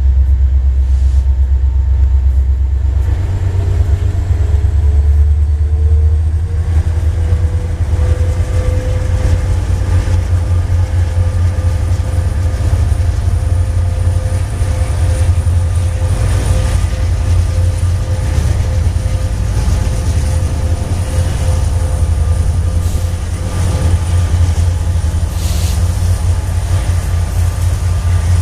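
BNSF coal train and Montana Rail Link helper diesel locomotives rumbling deeply as they pass, with a whine that rises a few seconds in and then holds steady.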